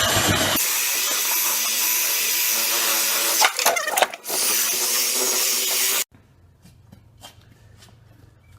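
Power buffer running steadily while polishing plexiglass, dipping briefly about three and a half seconds in, then cutting off abruptly about six seconds in; faint taps follow.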